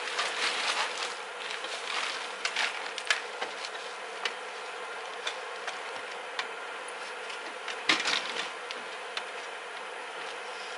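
A heavy recliner being tipped and shifted by hand: scuffing, scraping and scattered knocks, busiest in the first few seconds, with the loudest knock about eight seconds in. A steady buzzing hum runs underneath.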